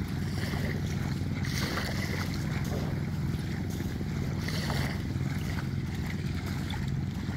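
Wind on the microphone: a steady low rumble over a beach, with a fainter hiss of surf.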